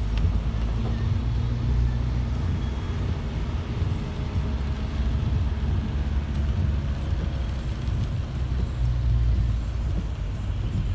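Steady low rumble of a car's engine and tyres on a wet road, heard from inside the moving car's cabin.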